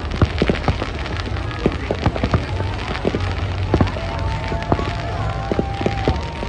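Fireworks going off, with rapid, irregular pops and crackles over a steady low rumble. A few held tones come in about two-thirds of the way through.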